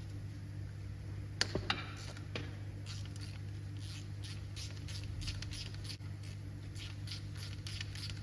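Light clicks and knocks of hand tools working on a Ford GPW engine block while the front engine mounting cover is being unbolted. There are a few sharper knocks about a second and a half in, then a run of light, irregular clicks, all over a steady low hum.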